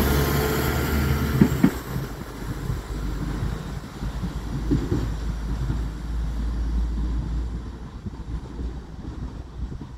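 West Midlands Railway diesel multiple unit passing close by and pulling away, a low rumble with a few clicks of wheels over rail joints in the first two seconds. The sound then fades steadily as the train recedes down the line.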